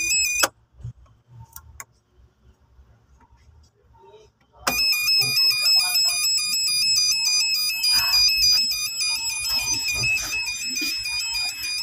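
Background music: a looping, chiming electronic melody that cuts out about half a second in and comes back just before five seconds in, with only faint clicks in the gap.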